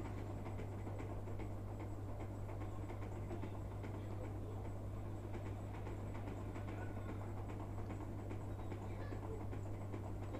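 Knife cutting a baked vermicelli sweet into squares in a glass baking dish: many faint clicks and scrapes as the blade meets the glass, over a steady low hum.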